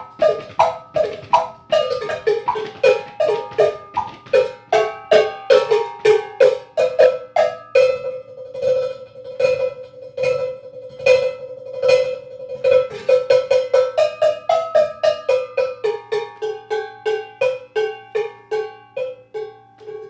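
A row of five cowbells struck in quick rhythmic patterns, jumping between bells of different pitches. About halfway through, one bell is hit in a fast roll before the patterns across the bells return.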